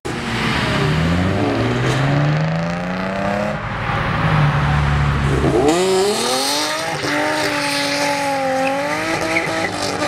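A car accelerating hard: its engine revs climb in pitch over the first few seconds, then it revs up sharply again about six seconds in and holds a steady high note, with tires squealing as it swings out onto the road.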